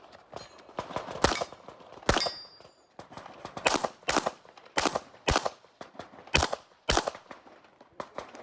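Handgun shots fired rapidly on a practical-shooting stage: about eight shots, the later ones in pairs roughly half a second apart.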